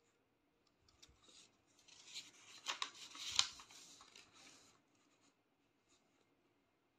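Faint rustling and scraping for about three seconds, with two sharp clicks in the middle of it.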